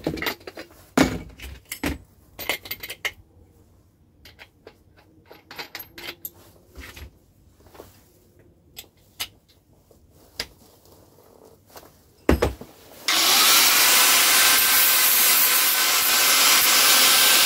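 Scattered clicks and knocks of tool and workpiece handling, with a louder double knock near the end of this stretch. Then an angle grinder fitted with a flap disc starts suddenly and runs steadily, sanding old metal off the steel rake part down to clean metal for welding.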